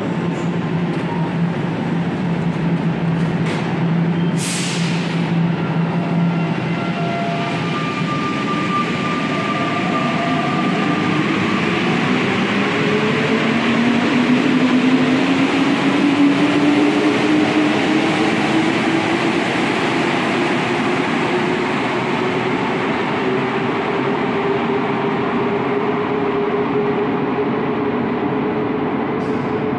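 Santiago Metro NS93 rubber-tyred train departing the platform. A steady hum and a short hiss about four seconds in, then the traction motors' whine climbs steadily in pitch as the train accelerates away into the tunnel.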